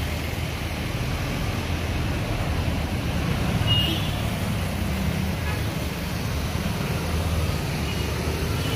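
Street traffic passing close by: a truck and motorcycles going past with a steady low engine rumble.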